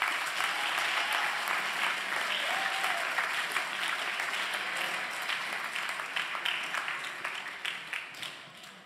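An audience applauding: many hands clapping together in a dense patter that fades out near the end.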